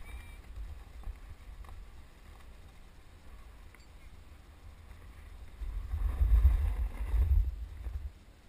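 Wind buffeting the microphone of a skier's camera while skiing downhill, with the skis scraping over the snow; the rumble swells for about two seconds near the end.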